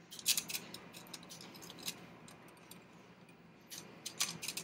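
Small screws and steel parts of a Baby Lock cap frame driver clicking and clinking as they are handled: a quick run of light clicks in the first second, a single click at about two seconds, and another run of clicks near the end.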